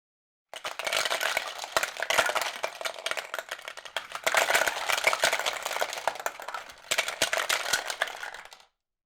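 Dense rattling and clicking clatter, like small hard objects being shaken or knocked about, in three long stretches with brief breaks between them.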